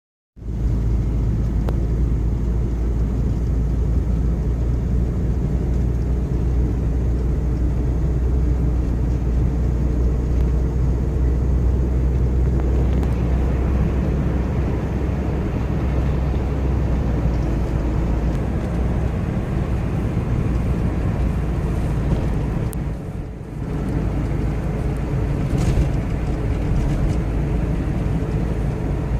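Sea surf washing on a beach, a steady noise with a heavy low rumble that dips briefly about 23 seconds in.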